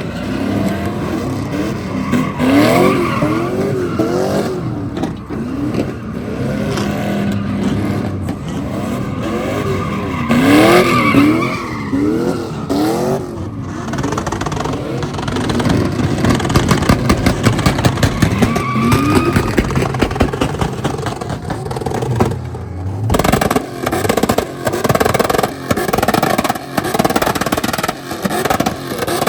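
A vehicle's engine revving hard in repeated rising-and-falling bursts while its tires spin and squeal: a burnout. Music comes in near the end.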